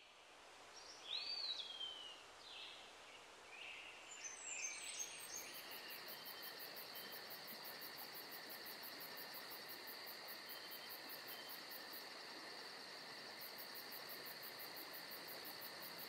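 Crickets chirping in a steady, evenly pulsing chorus from about five seconds in, over a steady rush of water from a rock waterfall pouring into a pool. A few bird calls come in the first few seconds.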